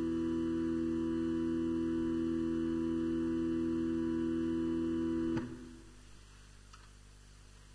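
Church organ holding a sustained chord, which is released about five seconds in and dies away in the church's reverberation, leaving quiet room tone.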